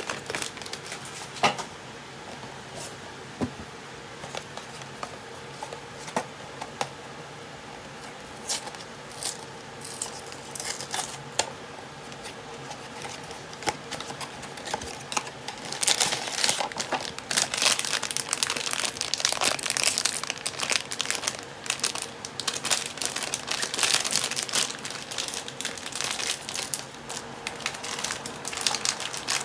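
Blind-box packaging handled by hand: a small cardboard box is opened with sparse clicks and rustles, then from about halfway through a foil wrapper crinkles and tears steadily as it is unwrapped.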